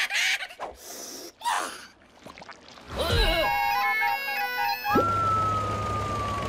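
Cartoon sound effects: breathy vocal gasps and noisy bursts, then a brief musical sting of changing tones, then a steady high whine over a low buzz starting about five seconds in.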